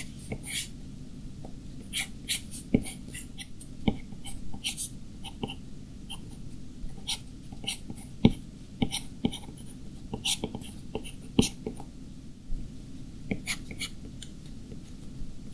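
Stylus tip tapping and sliding on the glass screen of an iPad Pro while drawing, making irregular sharp clicks over a steady low hum.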